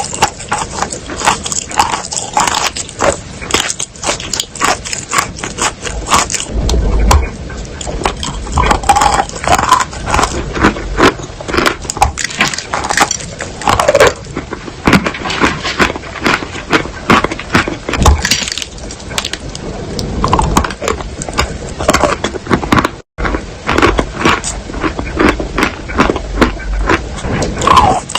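Wet chalk being crunched up close: a dense, irregular run of crackling crunches and scrapes, with a momentary gap about 23 seconds in.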